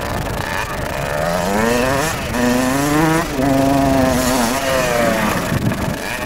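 Kawasaki KX60 60cc two-stroke motocross bike revving as it is ridden. The pitch climbs, dips a little over two seconds in, climbs again and holds, then falls away near the end.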